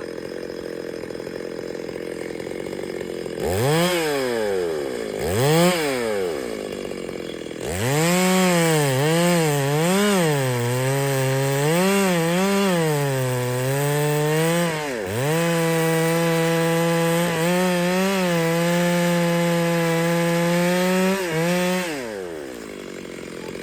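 Two-stroke chainsaw idling, blipped twice, then revved up and down several times and held at full throttle for about six seconds before dropping back to idle near the end.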